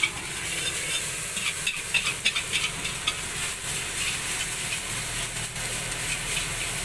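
Fried rice sizzling in a wok while a spatula stirs and scrapes it, with irregular clinks of the spatula against the pan.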